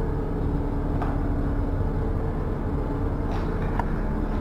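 Steady low mechanical rumble with a faint steady hum, and a couple of light clicks about three and a half seconds in.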